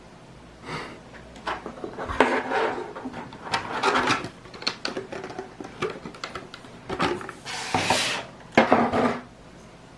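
Hard clear plastic packaging and plastic toy parts being handled on a tabletop: an irregular run of clicks, knocks and rubbing rustles that stops near the end.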